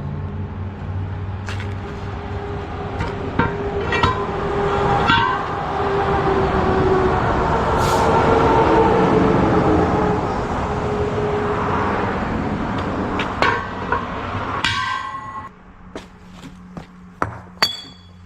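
Machinery running with a steady low hum that swells louder with wavering tones through the middle and drops back about fifteen seconds in, with scattered metal clanks and knocks.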